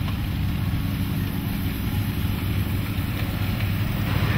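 Two-stroke Mofa (moped) engine running steadily as the moped rides off, its torn ignition cable repaired so that it fires again.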